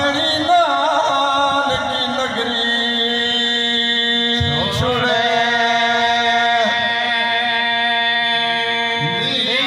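Amplified male voice chanting a melodic religious recitation in three long phrases. Each phrase begins with a wavering, ornamented rise about every four to five seconds and then settles into a long held note.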